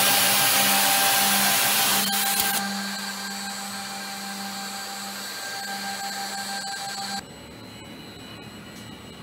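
Brandt Ambition 1650CF edge banding machine running with a loud, steady hiss and hum of its motors. The noise drops in steps, about two seconds in and again near the end, leaving a fainter steady hum.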